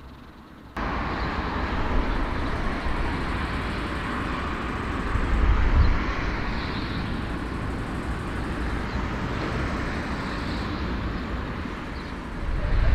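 Airbus A340 four-engine jet airliner heard across an airfield, a steady rumble and hiss of jet engines that starts suddenly about a second in and swells slightly around the middle and again near the end.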